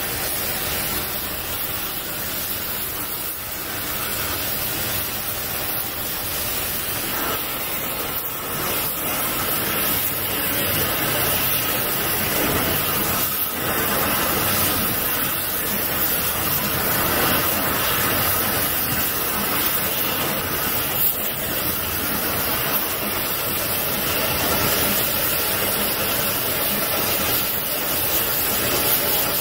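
Oxy-fuel gas torch hissing steadily while its flame plays on steel bars.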